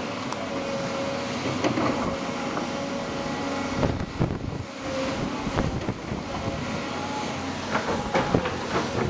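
Tracked diesel excavators working: a steady engine drone with short high squeals and scattered knocks as the machines move and swing their buckets.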